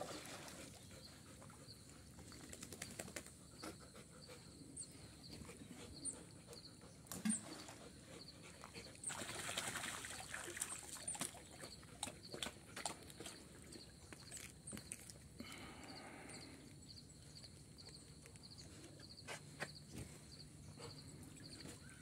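Dogs swimming in a still creek, faint: light water splashes and scattered small clicks, with a brief dog vocalisation about sixteen seconds in.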